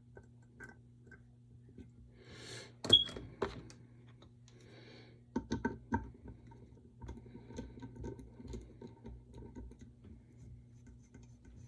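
Hand tap being turned back into a cross-threaded hole in a metal plate to re-cut the damaged top threads: faint scraping and scattered small metallic clicks, with a sharp click about three seconds in and a few more clicks around the middle. A steady low hum runs underneath.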